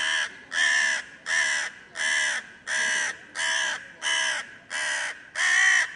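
Crow cawing over and over: a steady run of about nine harsh caws, evenly spaced, a little more than one a second.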